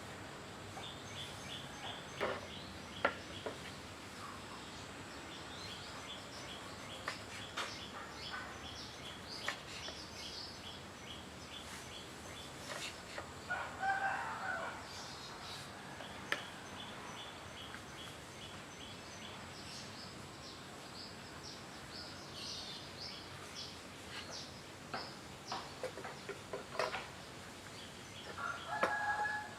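Birds calling outdoors: runs of short, high, repeated chirps, with a louder two-toned call about halfway through and again at the end. A few sharp clicks are heard here and there.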